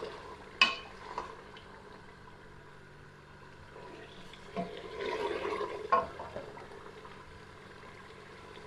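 Wooden spoon stirring mutton frying down in oil in an aluminium pot: a sharp knock of the spoon against the pot about half a second in and a lighter one soon after, then a stretch of wet stirring and sizzling around five seconds in ending in another knock.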